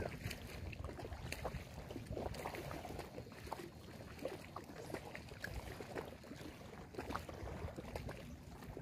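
Small waves lapping against a muddy lake shore, with many irregular little splashes and ticks.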